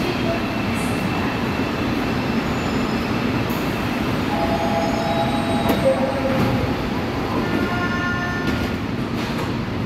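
Seoul Line 4 subway train standing at an underground platform with its doors closing, a steady hum of train and station throughout. A few short electronic tones sound midway and again near the end.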